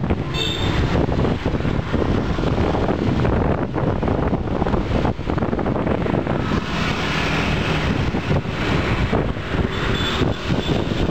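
Wind buffeting the microphone over road and engine noise from a vehicle travelling down a street. A short high-pitched beep sounds about half a second in.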